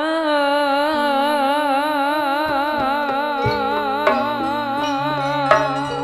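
Madurese gending: a singer holds one long note with a wide, even vibrato over gamelan accompaniment. Lower metallophone notes come in beneath the voice and move in steps, with a few sharp strokes.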